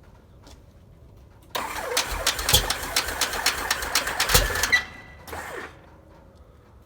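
Cessna 182's Continental O-520 engine on its first start, cranking and firing in loud irregular pops for about three seconds, then cutting off. A short burst of firing follows about half a second later.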